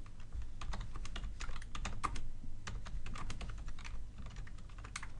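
Typing on a computer keyboard: an uneven run of key clicks entering a short chat message. The clicks thin out over the last second or so.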